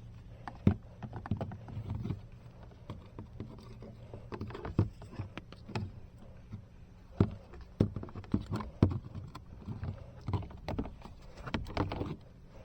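Irregular knocks, taps and scraping from hands and a thermostat wire being worked through a wall cavity, as the wire is fished from the thermostat hole.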